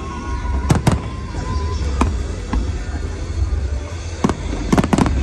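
Aerial fireworks shells bursting: about seven sharp bangs at irregular intervals, with a quick run of three just before the end, over a steady low rumble.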